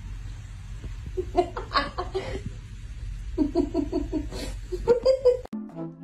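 A person laughing off-camera in three short bursts of quick pulses, over a low steady rumble. Near the end it cuts off suddenly and music with a woodwind melody begins.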